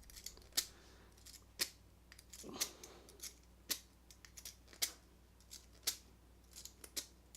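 Lock pick working the pins of a pin-tumbler deadbolt cylinder: sharp metallic clicks about once a second, with fainter ticks between them.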